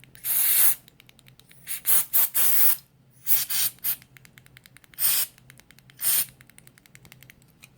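Aerosol electrical contact cleaner sprayed in about ten short hissing spurts, the first the longest and the rest in quick uneven groups.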